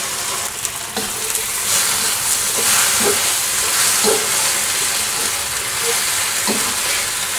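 Beef, peppers and onions sizzling in a hot wok with sauce, with a steady hiss, while a metal ladle stirs them, scraping and knocking against the wok a handful of times.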